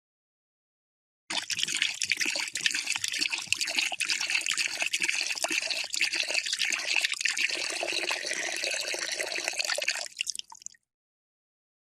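Water poured into a cup in a steady stream. It starts abruptly about a second in, runs for about nine seconds, then breaks up into a few last trickles and stops.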